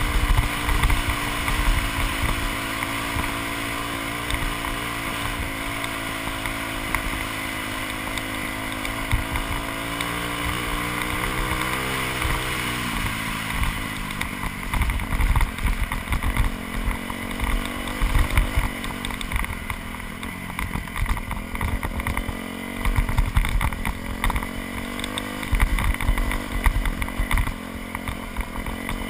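2001 Yamaha YZ426F's four-stroke single-cylinder engine running as the bike is ridden. Its note holds steady, drops in pitch a little before halfway, and then rises and falls unevenly with frequent low thumps.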